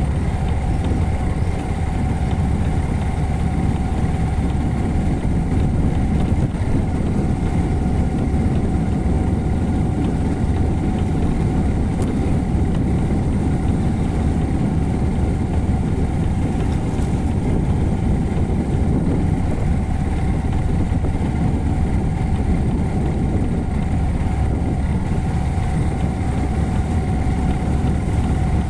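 Bajaj Pulsar NS160 single-cylinder motorcycle engine running at a steady speed during a ride, with wind rumbling on the microphone. The sound is steady and unbroken.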